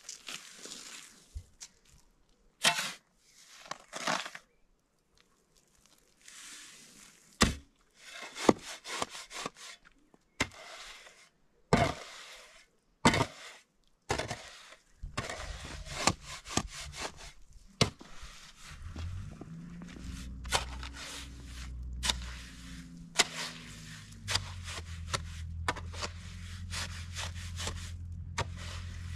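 Steel shovel scraping and digging into sand, tipped into a metal wheelbarrow, then chopping and turning the sand-and-cement mix in the barrow, in separate strokes a second or two apart. From about halfway a low steady hum runs underneath, briefly rising in pitch.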